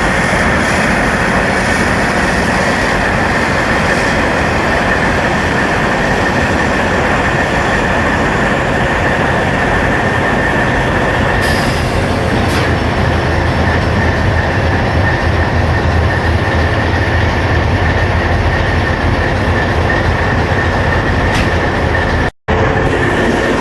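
Diesel locomotive engine running loudly just after start-up: a steady heavy drone with a constant high whine over it. The low rumble swells in the middle, and the sound cuts out briefly near the end.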